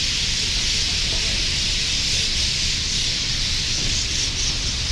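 A big flock of birds roosting in street trees, many calling at once in a dense, unbroken chatter of crazy noises. A low rumble of street traffic runs beneath.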